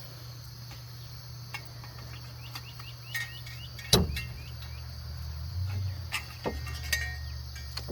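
Hand work on a car's front wheel hub assembly: a sharp metal clank about four seconds in and a few lighter clicks, over a steady low hum. A run of short high chirps comes around three seconds in.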